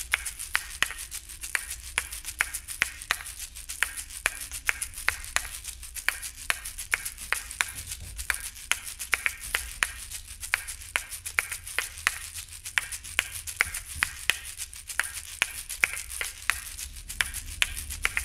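A soundtrack of sharp, dry clicks, about three a second in an uneven rhythm, over a low steady hum.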